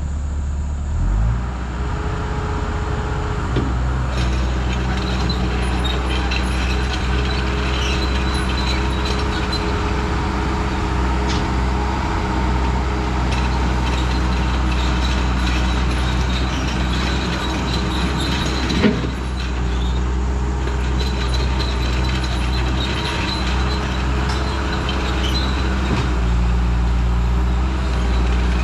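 2001 skid steer engine running steadily under load while it works gravel, with a single sharp clank about two-thirds of the way through.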